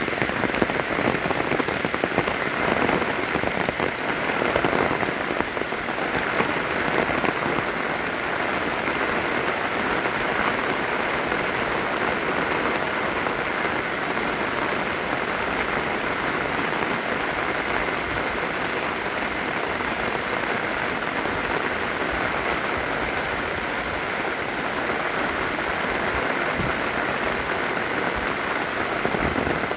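Rain falling steadily, an even hiss of countless drops with no let-up.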